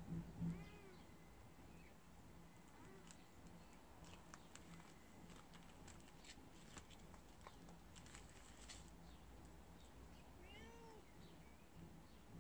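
A cat trapped in the cavity of a brick wall meowing faintly: one short meow just after the start and another short call about eleven seconds in.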